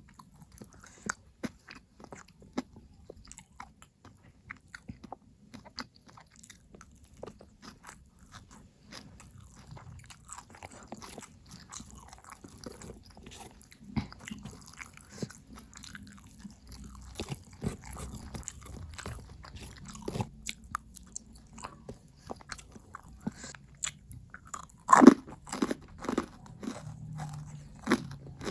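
Close-miked chewing and crunching of food, a steady run of small wet clicks and crunches, with a burst of louder crunchy bites about 25 seconds in.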